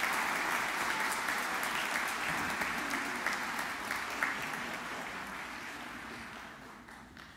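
A congregation applauding, the clapping gradually dying away toward the end.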